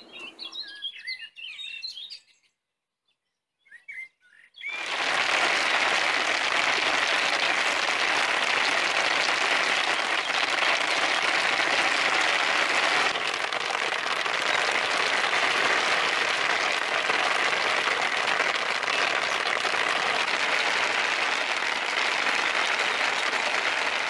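Small birds chirping briefly, then, after a moment's silence, steady rain from about five seconds in, heard from inside a small wooden bicycle camper.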